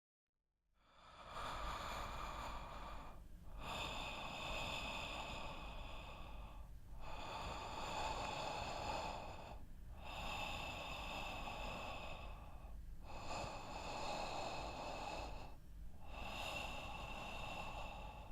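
A person's heavy breathing: six long, noisy breath sounds of about three seconds each, with brief breaks between them. It starts just under a second in.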